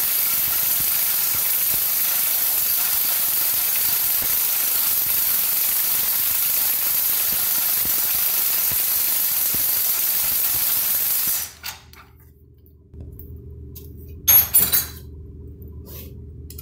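Propane shrink-wrap torch hissing steadily as it heats the outboard's lower-unit gearcase to free a seized bearing carrier. The hiss cuts off about eleven seconds in, followed a few seconds later by a few sharp metal clinks.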